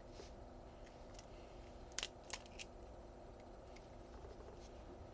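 Three light, sharp clicks in quick succession about two seconds in, a butterfly knife being handled, over a faint steady room hum.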